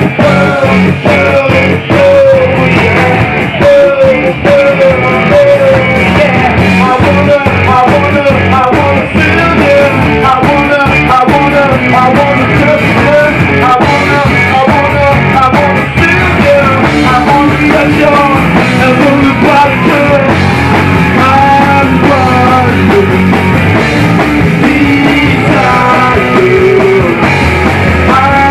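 Loud rock music with singing and guitar.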